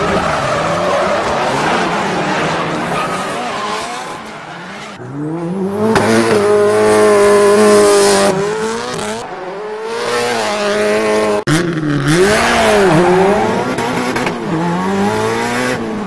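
Race-car engine revving up and down with tyre squeal, its pitch rising and falling in repeated sweeps. It is loudest over the second half, with a brief sudden break about two-thirds of the way through.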